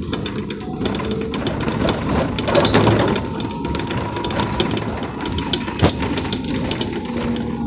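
Cabin noise inside an Iveco electric city bus under way: road noise and dense rattling of the body and fittings, with a faint steady whine, and a single sharp knock near the end.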